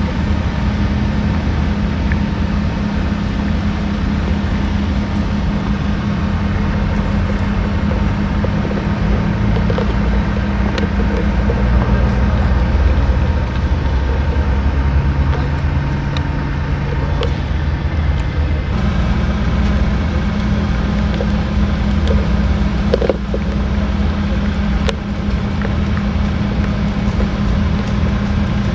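An engine running steadily, a loud low hum that shifts pitch for a few seconds in the middle and then settles back, with a few faint clicks over it.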